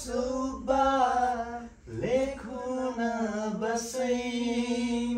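A voice singing a Nepali song without instruments, holding long steady notes, with a short pause for breath about two seconds in.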